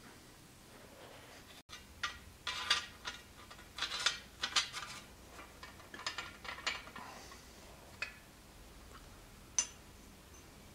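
Small metal pieces clinking and scraping in a string of short, irregular bursts, then one sharp click near the end.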